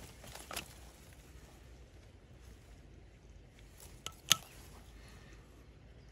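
Faint handling noise of fingers working thin wires in a plastic valve box, with a few short clicks: one about half a second in and two close together about four seconds in, the second the loudest.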